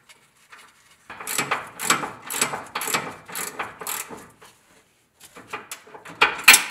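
Hand ratchet with a 3/4-inch socket clicking in quick back-and-forth strokes as it runs the nut down onto the track bar's ball stud. The clicks come in two runs, the first starting about a second in, the second near the end with its loudest click.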